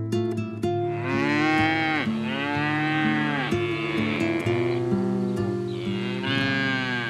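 Cow mooing in several long calls that rise and fall in pitch, over a light plucked-string background tune.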